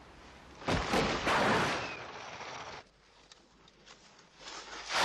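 A heavy impact about a second in, then about two seconds of loud rushing, scraping noise, as a car lands hard on snow after leaping off a ski jump. A second rising rush of noise comes near the end.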